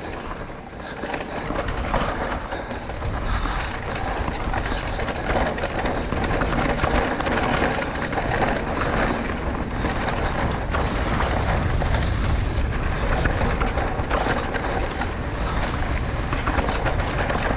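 Trek Rail electric mountain bike riding fast down a rough dirt trail: a steady low rumble from the tyres with constant rattling and clatter from the bike over the bumps.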